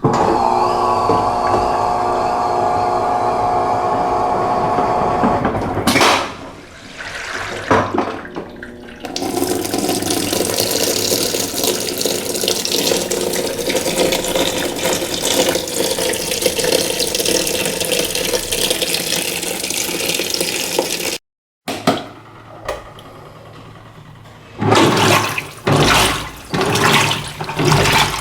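Electrolux LF90 washing machine with water rushing and sloshing through it: a steady rush that breaks up and resumes, then comes in short starts and stops near the end.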